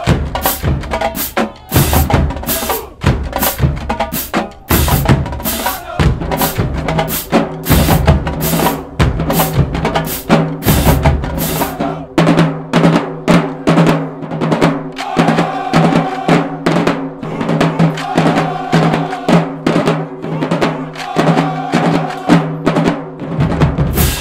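Marching drumline playing a cadence on snare drums, tenor drums, bass drums and crash cymbals, with dense, rapid strokes. About halfway through it settles into a steady, repeating groove with the pitched bass drums carrying the beat.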